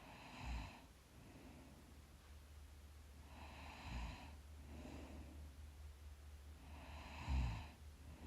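A sleeping person breathing slowly and softly snoring. Three snoring breaths come about three and a half seconds apart, with a quieter breath between each.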